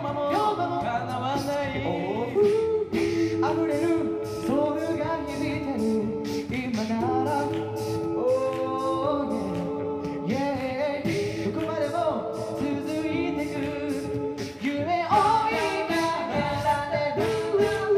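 An a cappella vocal group singing in close harmony through microphones, the chords held and changing every second or two, with a steady beat of vocal percussion underneath.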